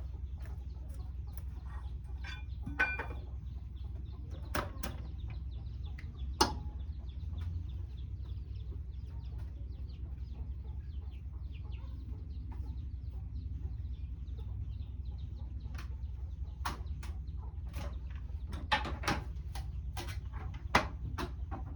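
Scattered sharp knocks and taps from hand work on clay roof tiles, heard over a steady low hum.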